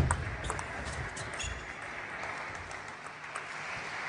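Table tennis ball cracking off a bat at the serve, then a few lighter clicks off bats and table in a short rally that ends about a second and a half in. After that, a steady low murmur of the hall.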